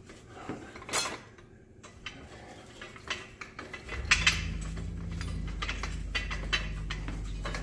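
Steel parts of a tubing anchor catcher clinking and scraping as the lower cone assembly is worked onto the tool, with a sharp metal knock about a second in and another about four seconds in. A steady low hum starts about four seconds in.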